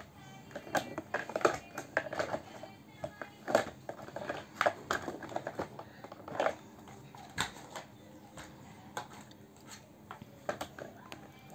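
Hard plastic toy vehicles clattering and knocking against each other as they are handled, in a run of irregular sharp clicks and knocks.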